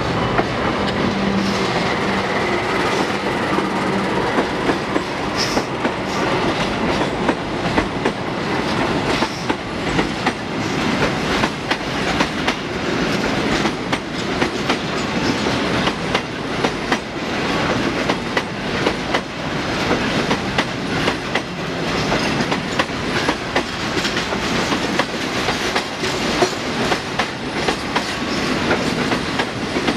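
Container freight train passing at speed, its flat wagons' wheels clattering over the rail joints in a steady run of clacks over continuous rolling noise.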